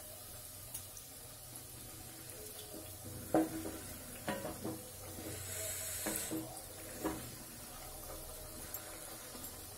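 Thekua dough cakes frying in hot oil in a kadhai, a faint steady bubbling sizzle, with a few light clinks of a perforated steel skimmer against the pan as they are turned, around the middle.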